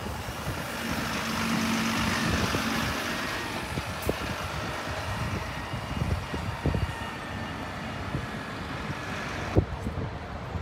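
A bus passing by on the road, its engine and tyre noise swelling over the first couple of seconds and then slowly fading, with gusts of wind on the microphone.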